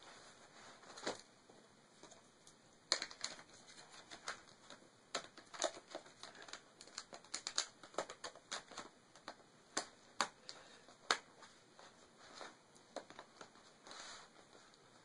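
Plastic battery cover of a laptop being fitted back onto the base: a string of irregular light clicks and taps as it is handled and pressed into place.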